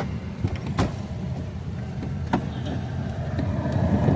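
A vehicle's steady low rumble with a few sharp clicks, one about a second in and another past two seconds.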